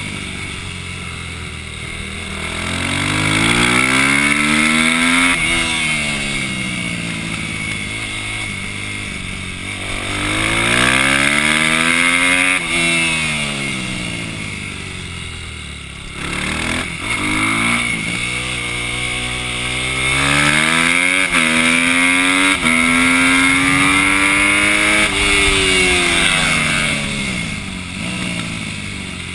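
Onboard sound of a 250/400-class supermoto motorcycle's single-cylinder engine racing through a tight course: the revs climb hard, drop away as it slows for corners, then climb again, several times over. Around the middle the pitch rises in short steps broken by quick gear changes, holds high, then falls near the end.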